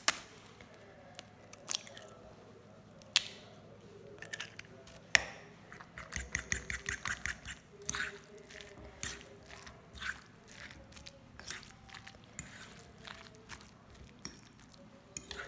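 A fork tapping an egg to crack it, a few sharp clicks in the first five seconds, then stirring and mashing the egg into a soft mashed cauliflower and potato mixture in a glass bowl: quiet squishing with repeated light clicks of the fork against the glass.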